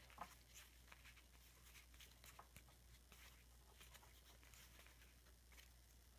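Very faint soft rustles and light clicks of Topps basketball trading cards being slid off a stack and flipped through by hand, over a steady low hum.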